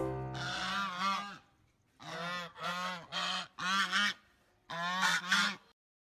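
Goose honking: a run of about five calls that cuts off suddenly near the end.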